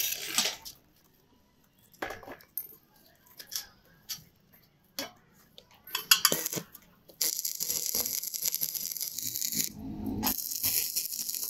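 Several separate metal knocks and clinks, then a steady high hiss starting about seven seconds in that stops briefly near ten seconds and starts again.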